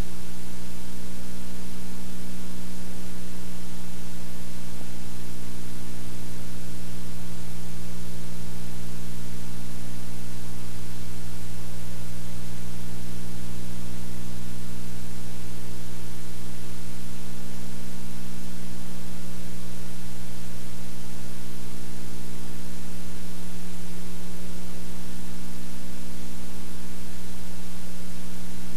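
Steady hiss with a loud mains hum and its overtones, unchanging: playback noise of a blank stretch of videotape, with no recorded sound on it.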